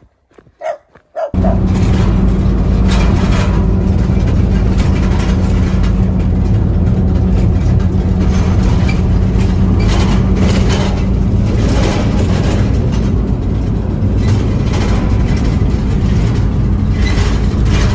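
Inside the cab of a moving van: steady engine drone with a constant low hum and road and tyre noise. It cuts in suddenly about a second in, after a couple of short, faint sounds.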